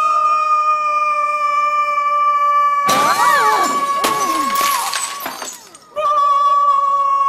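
A boy's voice holding one long, high sung note. About three seconds in, glass shatters for about a second as a hanging light fixture bursts from the note. The note breaks off briefly near the end, then starts again.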